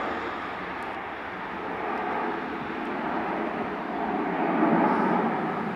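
Jet engines of an airliner climbing out after takeoff: a steady rushing noise that swells slightly about four to five seconds in.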